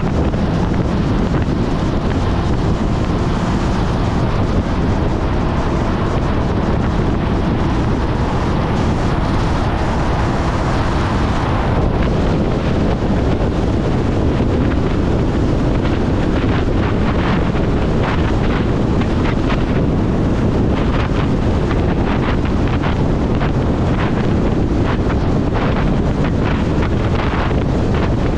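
Wind rushing over an action camera's microphone on a moving motorcycle, a steady loud rush that turns gusty and buffeting from about halfway through, covering the Honda CB400SF's engine.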